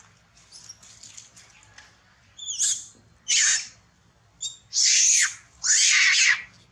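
Long-tailed macaques screaming. A few soft squeaks come first, then four loud, harsh shrieks in the second half, the last two the longest.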